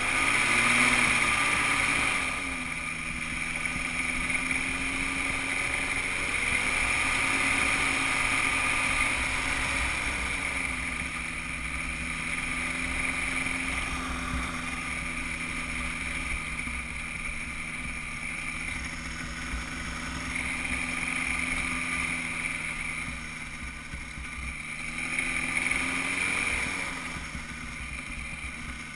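Engine of a Cosmos weight-shift microlight trike running at low power as it taxis on the ground. Its note drops a couple of seconds in and rises and falls a few times with the throttle.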